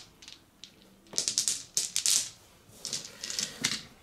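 A handful of six-sided dice clattering together as they are scooped up and handled, in three bursts of rapid clicking.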